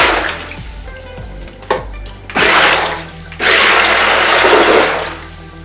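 Waterproof remote-control stunt car's spinning wheels churning the water in a half-filled bathtub. It comes in rushes as it is driven: one stopping just after the start, a short one about two and a half seconds in, and a longer one that fades out about five seconds in.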